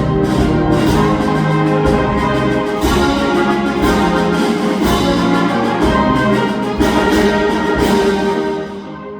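Concert band playing loud, full-ensemble music with brass to the fore and frequent percussion strikes. About eight and a half seconds in the full band drops away to a softer brass passage.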